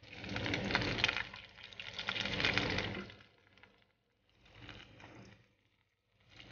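Hot oil sizzling and crackling around sambousek pastries deep-frying in a pan. It is loudest and densest through the first three seconds, then returns in shorter, fainter bursts.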